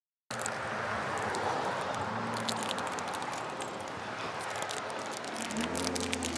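Passing road traffic, cutting in abruptly a moment in: a steady rush of tyres and engines as cars drive by close at hand, with a deeper engine hum swelling as a car passes near the end.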